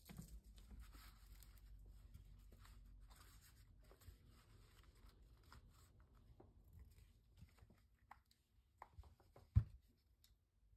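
Faint rustling of paper being handled and smoothed flat on a tabletop, with a few small clicks and one soft knock near the end.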